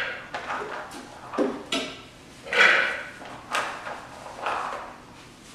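Soaked chickpeas being scooped from a plastic tub with a measuring cup and tipped into a blender jar: about six short clattering bursts, roughly one a second.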